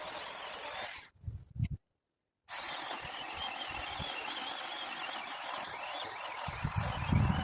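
Mini chainsaw running steadily with a constant high whine while cutting. The sound cuts off abruptly about a second in and comes back at about two and a half seconds. Low thuds and bumps come with it, loudest near the end.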